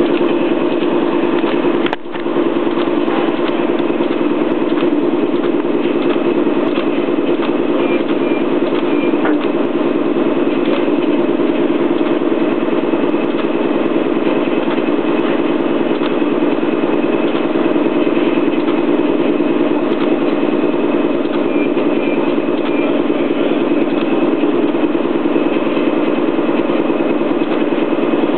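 Mark One roll-to-roll perforator running steadily, its rollers turning and plastic film feeding through as the perf blades work against a brush roller. The drone is continuous, with a brief drop about two seconds in.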